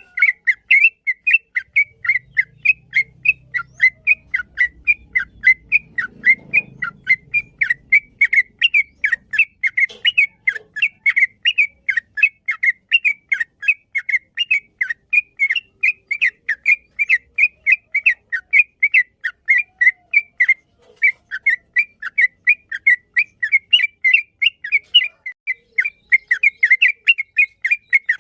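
Yellow-vented bulbul singing a long, fast run of short, sharp whistled chirps, about four a second, broken only by a couple of brief pauses. It is the long rolling 'ropel' song used to train caged birds.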